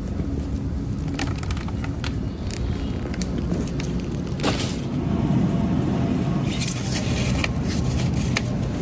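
Steady low rumble of a car running, a little louder from about five seconds in, with scattered light clicks.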